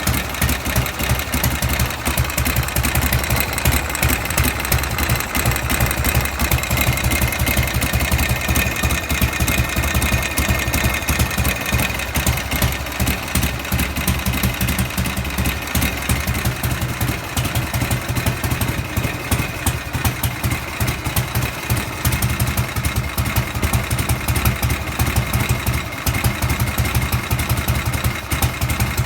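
Harley-Davidson Shovelhead V-twin engine idling steadily, with the rapid ticking of an abnormal noise from the rocker cover.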